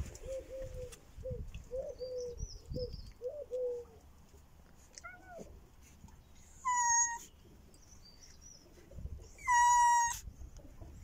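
Domestic cats meowing: a string of soft, short calls over the first four seconds, then two loud, high meows, the second the louder, about a second before the end.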